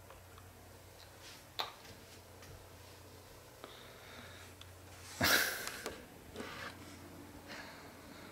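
Quiet room tone with a steady low hum. A single click comes about a second and a half in, and a loud, short breath close to the microphone about five seconds in.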